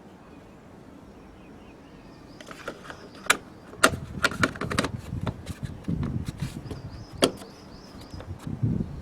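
Irregular sharp knocks and clicks starting about two seconds in, the loudest at about three, four and seven seconds in.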